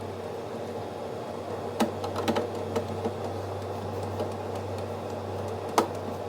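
A steady low electrical hum, with a few sharp clicks and taps about two seconds in and a louder single click near the end.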